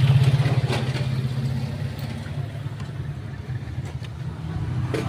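Mitsubishi Strada's diesel engine idling steadily, heard with the hood open, a few faint clicks over it. The engine has a hole in its turbo hose, which the mechanic suspects is causing its black smoke.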